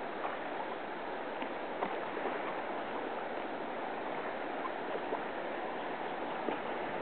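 Steady rush of river water around a kayak, with small splashes and drips now and then.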